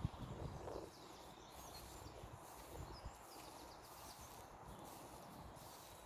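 Faint outdoor park ambience: scattered short bird chirps over a low, steady rumble.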